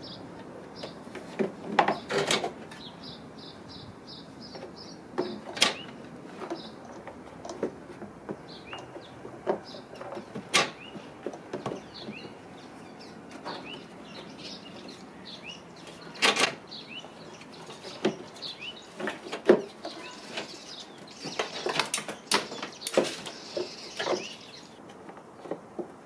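Hard plastic knocks and clacks from a car's air filter box being fitted into the engine bay and its cover pressed into place, with a cluster of quicker clacks near the end. A bird chirps in short repeated notes throughout.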